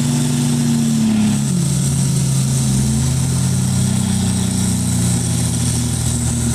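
Four-wheel-drive hardtop engine running under load while towing another hardtop through mud; its revs drop about one and a half seconds in, then build back up and hold.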